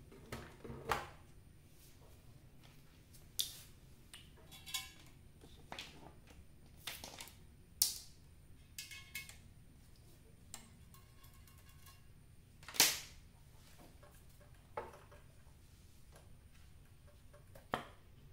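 Scattered clicks and knocks from handling the wiring, connectors and circuit board of an opened CRT television, about a dozen in all, one sharper and louder than the rest about two-thirds of the way through.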